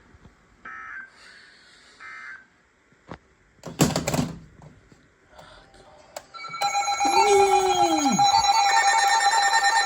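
Three faint short bursts of data warble early on, a brief knock around four seconds in, then about six and a half seconds in a loud steady Emergency Alert System attention tone comes on and holds. A voice rises and falls over the tone for about a second shortly after it starts.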